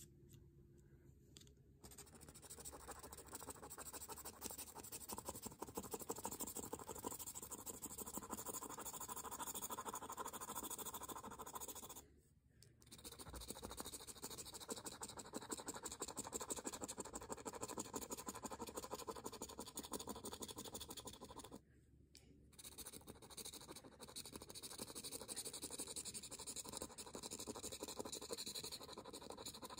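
Scratch-off lottery ticket being scratched: rapid back-and-forth scraping of a thin tool through the latex coating on the card, in long runs that pause briefly twice.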